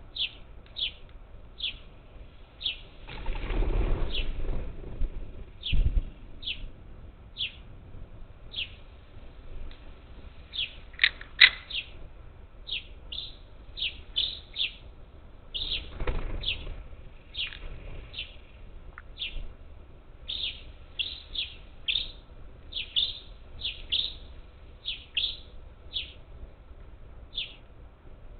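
Parakeets calling over and over with short, falling calls, about one or two a second. There is a burst of wing flapping about three seconds in, a thump a couple of seconds later, and more flapping about sixteen seconds in.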